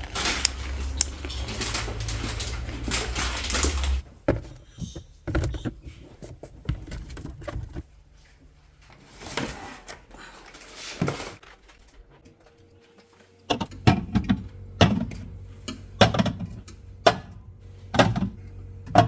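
Indoor handling noise: scattered short knocks and clunks, with a steady low hum in the first few seconds. From about two-thirds of the way through comes a run of louder thumps, roughly one a second.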